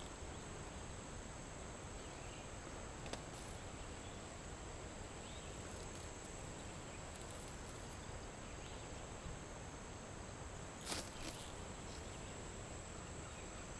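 Faint outdoor ambience dominated by a thin, high, steady insect drone, like crickets. Two or three soft clicks or rustles break in, the clearest about eleven seconds in.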